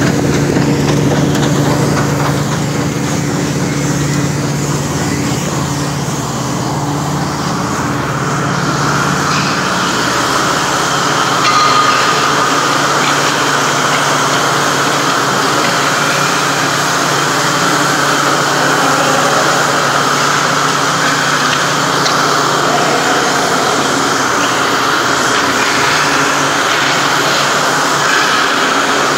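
Engine of a truck-mounted cement mixing and pumping rig running steadily. Its low hum fades after about eight seconds, leaving a steady rushing noise.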